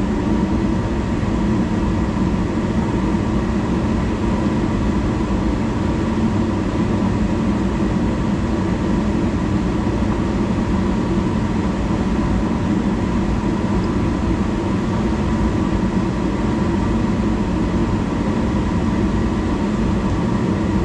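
Steady mechanical drone with a low hum and faint steady whine, unchanging throughout.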